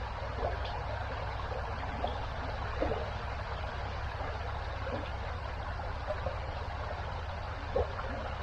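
Small river in flood, high and fast after heavy rain, rushing steadily past the bank, with a few faint small knocks.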